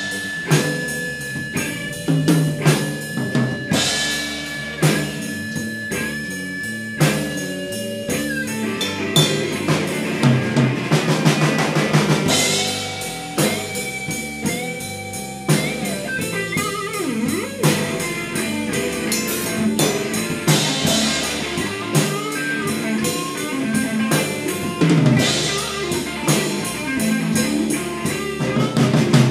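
A blues-rock band playing live: drum kit, electric guitars and bass in an instrumental stretch with no singing.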